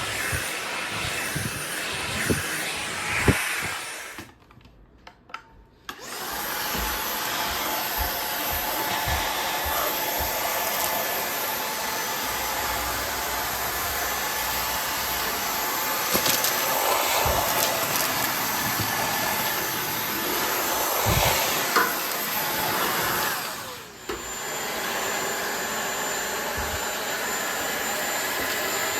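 Cordless stick vacuum running with a steady rushing noise and occasional knocks. About four seconds in, the motor cuts out for a second and a half and then starts again; near the end it dips briefly.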